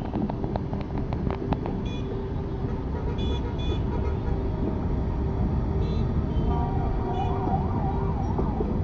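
Steady road-traffic noise with a few short horn toots, and a siren-like tone warbling up and down about three times a second near the end.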